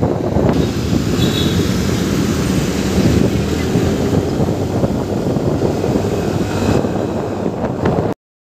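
Motor scooter riding through traffic: steady engine and road rumble with wind buffeting the microphone, cutting off abruptly to silence near the end.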